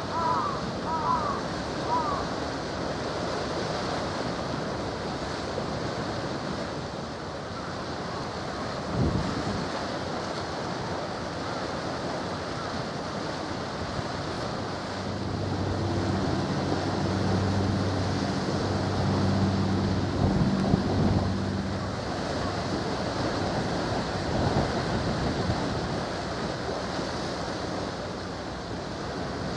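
Wind buffeting the microphone over waves lapping the shore. A few short chirps sound near the start, and there is a brief thump about nine seconds in. Midway, the low, steady hum of a passing vessel's engine runs for several seconds.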